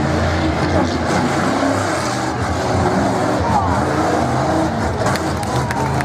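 Engine of a Peterbilt monster truck running steadily as it drives off crushed cars, with voices in the background.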